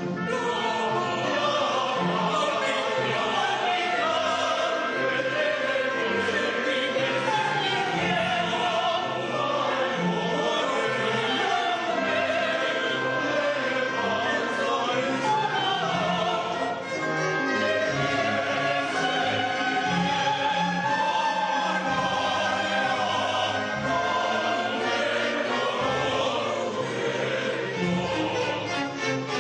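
Choir singing with a symphony orchestra in a classical, operatic style, sustained and full throughout.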